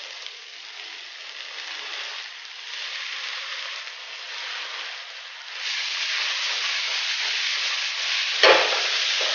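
Stir-fry of chicken, sausage and vegetables sizzling steadily in a hot pan, with sweet soy sauce just added. The sizzle grows louder about five and a half seconds in, and a single sharp knock comes near the end.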